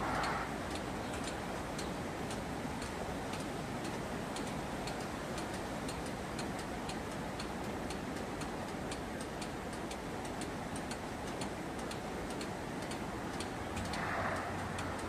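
Faint, regular ticking, about two ticks a second, over steady outdoor background noise, with a brief swell of noise near the end.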